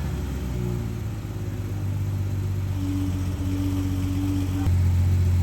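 Porsche 991.2 GT3's 4.0-litre flat-six running steadily at idle through a freshly fitted titanium Valvetronic exhaust. Near the end the exhaust note suddenly steps up louder and deeper and holds there.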